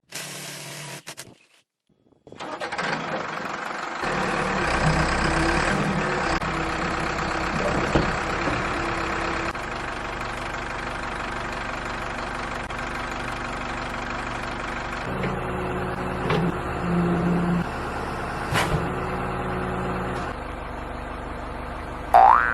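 Backhoe's diesel engine starting about two and a half seconds in, running louder for a few seconds after it catches, then running steadily.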